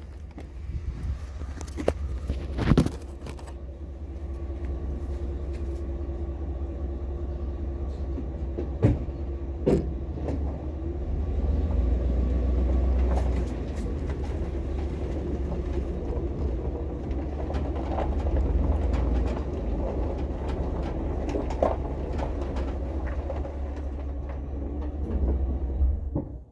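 Vehicle running and driving, heard from inside the cab: a steady low engine and road rumble with a faint whine above it. A few sharp clicks and knocks in the first few seconds, and the rumble cuts off suddenly near the end.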